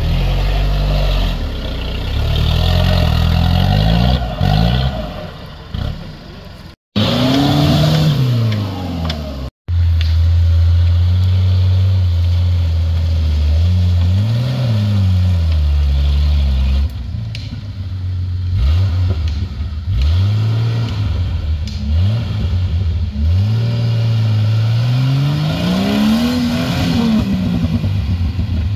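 Off-road 4x4 engines revving hard while the vehicles crawl through deep mud ruts. The pitch climbs and falls again and again as the throttle is worked, with a held stretch of steady high revs, then a run of quick throttle blips and one long rev near the end.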